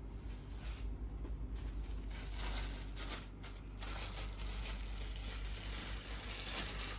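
Rustling and crinkling of packaging material as the statue's parts are handled and unpacked.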